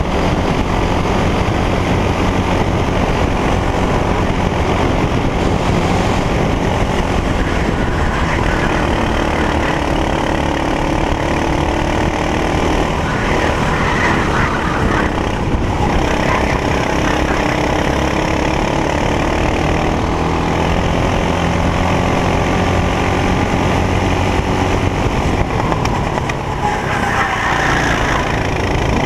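Racing kart engine under full race load, recorded onboard: the revs climb and fall as the kart accelerates out of corners and lifts or brakes into the next ones.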